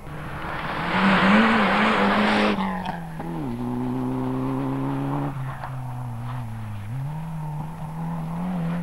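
Rally car engine running hard as the car slides on a loose dirt stage, with a loud burst of tyre and dirt-spray hiss in the first couple of seconds. The engine note then drops and holds lower before climbing again near the end.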